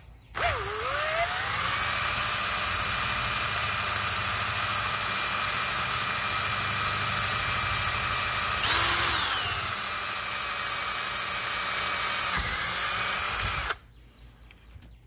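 Electric drill boring through a steel mounting bracket held in a vise. The motor spins up about half a second in and runs steadily, slowing briefly under load past the middle with a short louder surge, then shuts off about a second before the end.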